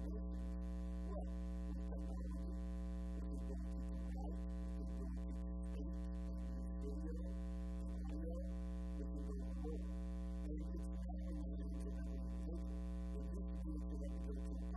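Steady electrical mains hum, a low buzz with a stack of even overtones that never changes, with faint speech almost buried beneath it.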